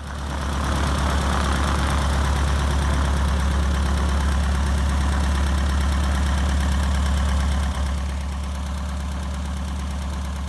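Van's RV-6A's four-cylinder horizontally opposed aircraft piston engine running steadily on the ground with the propeller turning, a deep even throb, on its first engine runs. It gets slightly quieter about eight seconds in.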